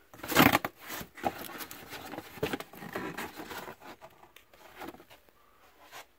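Rustling, scraping and clicking handling noise close to a phone's microphone as it is moved about, loudest about half a second in and thinning out near the end.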